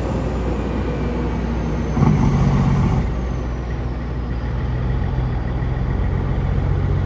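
Peterbilt semi truck's diesel engine running as the truck pulls a trailer slowly across the lot, a steady low rumble that swells louder for about a second around two seconds in.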